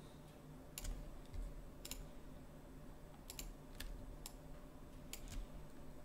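Scattered short, sharp clicks from a computer keyboard and mouse, about eight in all, some in quick pairs, over a faint steady low hum.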